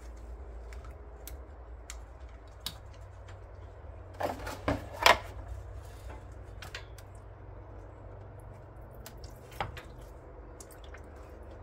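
Scattered metal clicks and knocks as the Volkswagen Haldex coupling pump is worked loose by hand, with a cluster of louder knocks about four to five seconds in. A low steady hum runs underneath.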